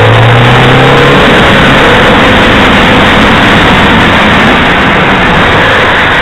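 Ford Focus on the move: a steady, loud mix of engine hum and tyre and road noise. A low engine note rises slightly and fades into the rumble about a second in.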